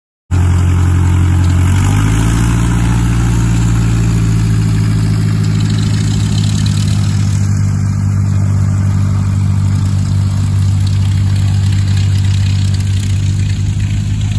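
Vintage biplane's piston engine running on the ground, picking up speed about two seconds in and then holding a steady, loud run.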